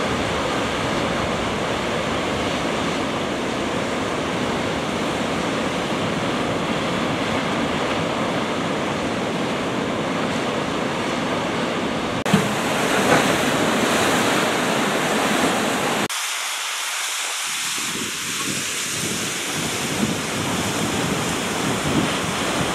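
Heavy sea surf breaking and churning over a rocky volcanic shore, a steady rushing noise with wind buffeting the microphone. The sound changes abruptly about halfway through and again about two-thirds through, the deep rumble dropping out for a moment at the second change.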